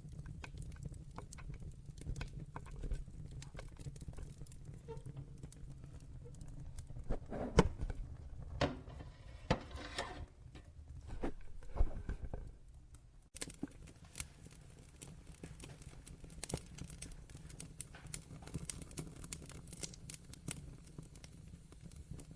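Wood fire crackling, with irregular sharp pops over a low rumble of flames. A few louder pops come about a third to half of the way in. About halfway through the rumble drops away abruptly, leaving lighter, quicker crackles.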